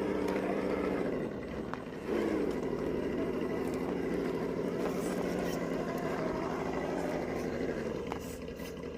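RC crawler's electronic engine-sound simulator playing a synthetic engine note through its small speaker. The note holds steady, drops about a second in, then climbs again at about two seconds as throttle is given.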